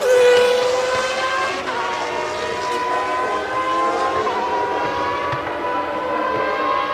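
Formula One racing car engine running at high revs, a loud, high, steady note that comes in suddenly at the start and wavers briefly twice in pitch.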